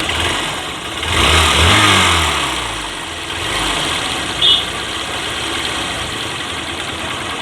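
Hero Hunk motorcycle's 150 cc single-cylinder four-stroke engine is revved once about a second in, then settles to a steady idle. It makes a rattly, clicking bad sound in place of a smooth note, which the mechanic puts down to the bike never having been serviced in 7,665 km.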